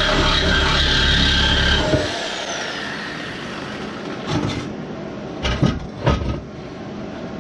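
A motor running steadily is switched off about two seconds in, its whine falling as it winds down. Then come three short knocks of metal being handled.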